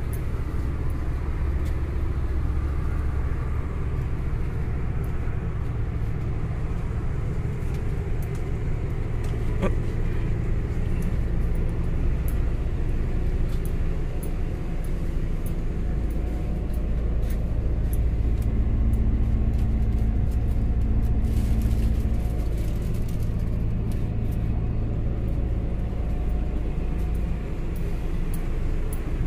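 Heavy diesel engine running steadily with a deep, continuous rumble and a faint steady hum. It grows a little louder about two-thirds of the way through.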